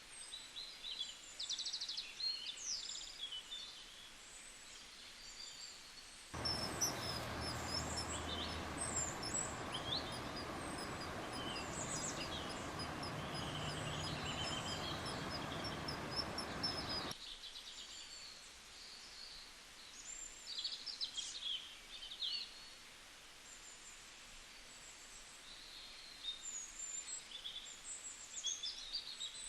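Birds chirping in short, high notes over a faint outdoor background. For about ten seconds in the middle, a louder, steady rushing noise cuts in and out abruptly, with a rapid run of evenly spaced high chirps over it.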